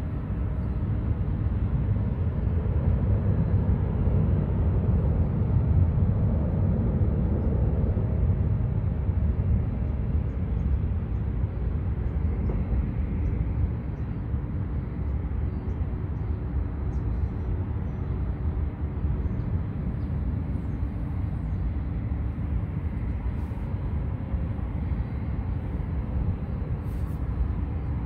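Aircraft engines running at taxi power, heard from a distance: a steady low rumble with faint steady tones, swelling a few seconds in and easing after about ten seconds.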